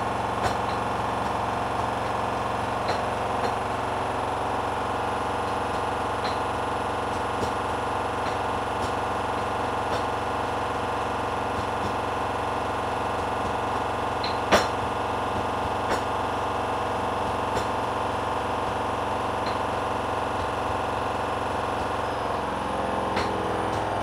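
Hoover Dynamic front-loading washing machine running, its drum turning with a steady motor hum and scattered light clicks and knocks from the load, one louder knock a little past the middle. Near the end the motor's pitch shifts.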